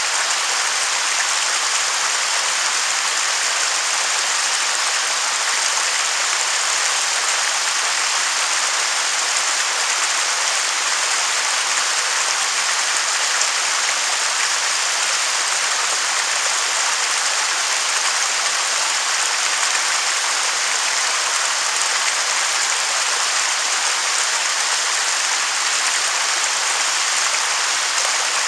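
Waterfall rushing: a steady hiss of falling water with little low rumble.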